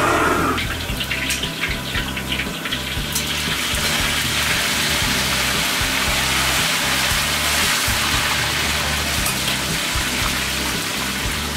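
A wok burner's roar cuts off about half a second in. Then hot oil bubbles and hisses in the wok as a metal ladle moves through it, settling into a steady hiss.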